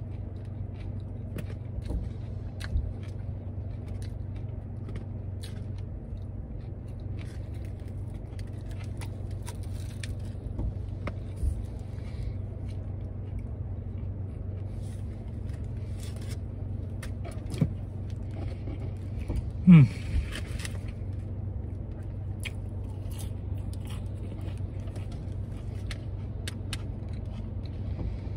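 Close-up mouth sounds of chewing a crispy fried-shrimp po'boy, with many small wet clicks and crunches, over a steady low hum inside the car. About two-thirds of the way through comes a short hummed "mm" falling in pitch, the loudest sound.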